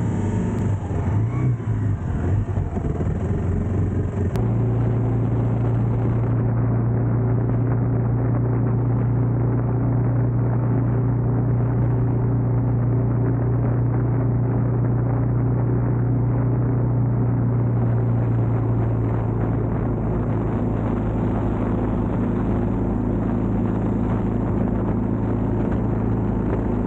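Kawasaki KLR 650 single-cylinder engine running under way. For about the first four seconds the sound is uneven as the bike comes out of a water crossing, then it settles into a steady drone at cruising speed on pavement.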